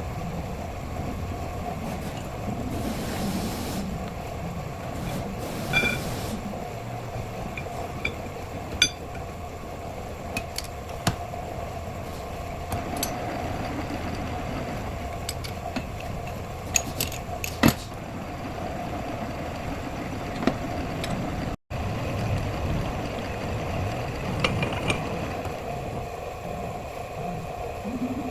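A steady engine-like running hum, with scattered sharp metallic clicks and clinks, loudest about nine seconds in and again near eighteen seconds.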